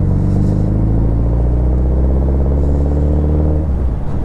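Suzuki Hayabusa's inline-four engine running under way, its note falling slowly as the revs drop, then breaking up briefly near the end.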